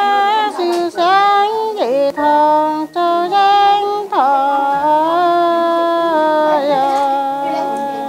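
A woman singing unaccompanied, one voice holding long drawn-out notes and sliding down between them, in the manner of a Dao folk song.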